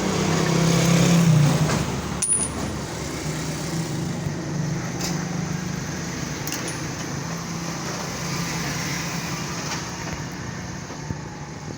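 A steady low motor hum, loudest at first and then easing off, with a few sharp clicks, the loudest about two seconds in.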